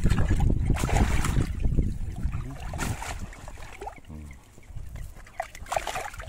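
Water sloshing and splashing as a wet cast net is gathered up by hand in waist-deep water. Wind rumbles on the microphone, loudest in the first couple of seconds, then eases off.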